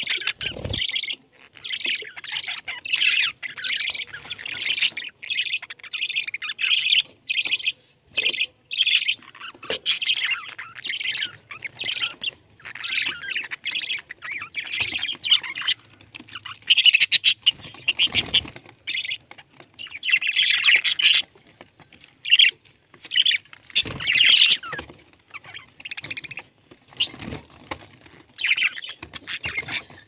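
A flock of budgerigars chattering and chirping in quick, overlapping bursts, with a few low thumps.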